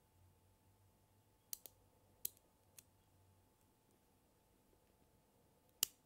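5 mm neodymium magnet balls clicking as they snap onto one another while a slab of balls is pressed into place: a quick pair of sharp clicks about a second and a half in, another soon after, a fainter one, and the loudest click near the end.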